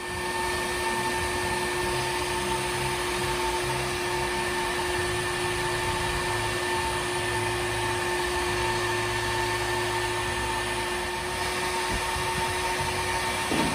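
Makita electric heat gun running steadily, its fan blowing with a constant whine, as it heats the final-drive housing around the swingarm bearing to free the bearing. It switches on right at the start.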